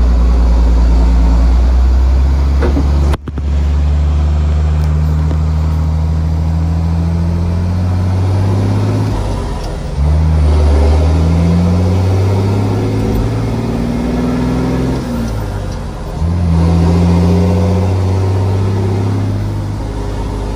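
Dump truck engine heard from inside the cab while driving, pulling up in pitch through each gear. The note breaks off and drops sharply at manual gear changes about three, ten and sixteen seconds in.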